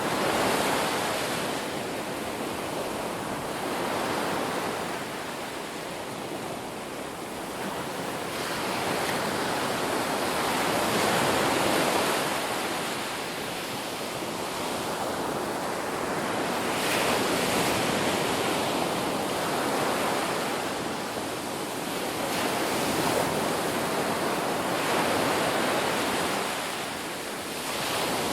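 Ocean waves breaking and washing up a beach, a continuous surf rush that swells and falls back every few seconds.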